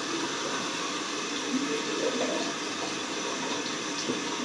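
Bathroom faucet running steadily into the sink, water splashing as a bottle cap is rinsed under it.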